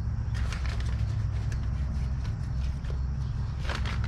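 Scattered light clicks and handling noises, as of a fuel line and zip tie being worked into place on a mower, over a steady low hum.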